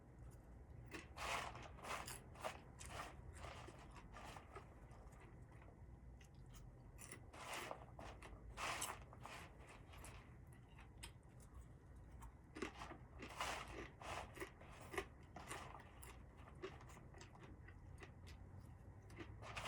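Faint crunching and rustling noises in short clusters, about a second in, around eight seconds and again around thirteen to fifteen seconds, over a low steady hum.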